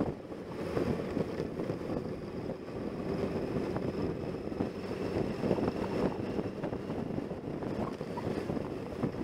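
Heavy wind noise buffeting the microphone of a camera on a moving motorcycle, over the steady running of the motorcycle's engine.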